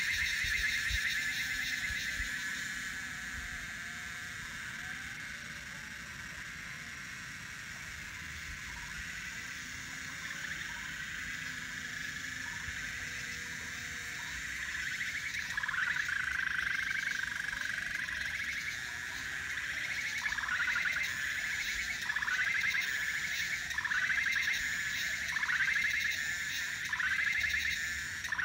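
A steady, high-pitched chorus of calling animals at dusk. From about halfway through, a short falling call repeats roughly once a second over it.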